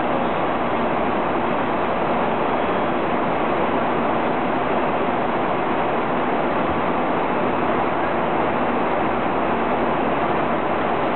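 Steady cabin noise of a jet airliner in cruise, heard from inside the cabin: an even rush of airflow and engine noise that holds the same level throughout.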